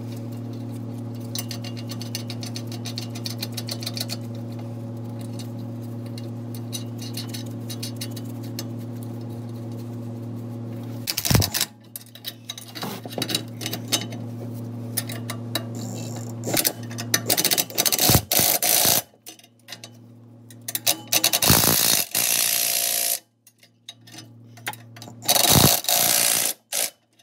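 Nuts and bolts being tightened on the exhaust flange between a new catalytic converter and the exhaust pipe: rapid ratchet ticking over a steady hum for the first part. Then come louder, irregular bursts of tool noise broken by sudden silences.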